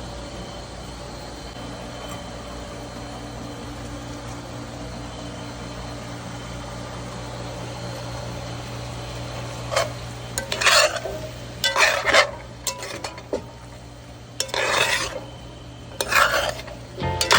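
Food sizzling steadily in a pan, then a utensil stirring and scraping against the pan in several short bursts from about ten seconds in.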